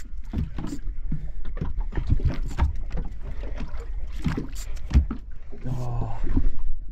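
Boat deck sounds: a low steady rumble with many scattered short knocks and clatter, and a short "oh" near the end.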